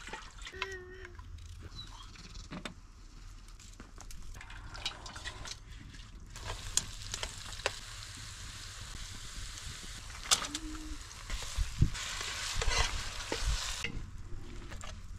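Vegetables frying in oil in a pot over a wood fire, sizzling steadily from about six seconds in and louder near the end, with a spoon knocking and scraping against the pot as they are stirred. The sizzle cuts off suddenly shortly before the end.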